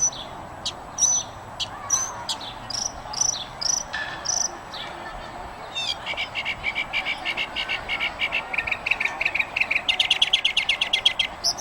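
Wild birds calling: a string of short, sharp high chirps two or three times a second. From about six seconds in they give way to a fast, rhythmic trill of many notes a second that grows louder near the end.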